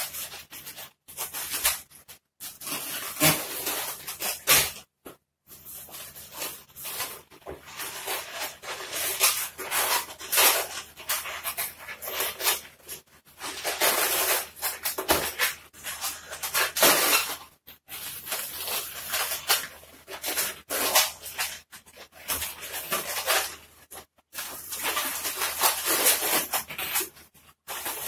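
Latex modelling balloons squeaking and rubbing against each other as they are twisted and bent by hand, in irregular bursts with short pauses between.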